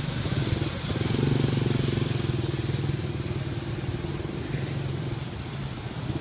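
Small motor scooter engine running close by, coming up strongly about a second in and fading over the next few seconds as it moves off. Another scooter's engine comes close near the end, over general street traffic.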